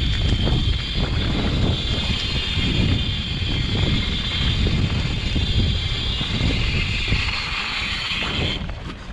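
Wind buffeting the microphone of a camera on a mountain bike, over the rumble and rattle of the bike's tyres rolling down a dry dirt singletrack. A steady high hiss runs along with it and cuts off suddenly near the end.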